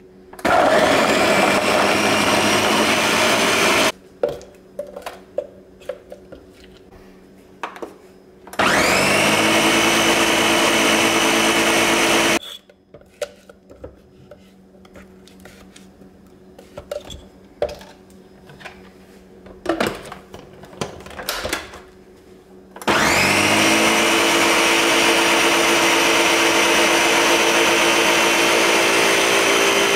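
Ninja countertop blender crushing frozen strawberries in milk, run three times: two short runs of about four seconds each, then a longer one from about two-thirds of the way through. Its motor pitch rises as each run starts. Between runs, a spatula taps and scrapes inside the plastic jar.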